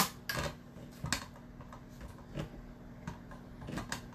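Hand-crank spiralizer cutting a zucchini into spirals: irregular plastic clicks and knocks as the crank turns, the loudest right at the start, over a faint steady hum.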